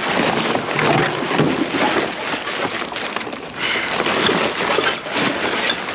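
A plastic garbage bag being torn open and rummaged through by hand, with dense rustling and crinkling throughout.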